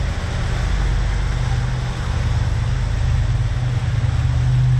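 Twin Mercruiser 7.4 big-block V8 boat engines running steadily underway, a deep drone under a constant hiss of wind and water.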